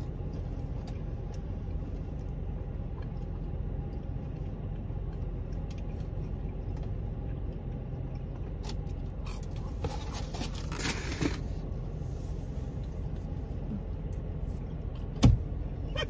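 Someone chewing and biting into crunchy toasted ravioli inside a car, over a steady low rumble, with a burst of crunching about two-thirds of the way through. A single sharp thump near the end is the loudest sound.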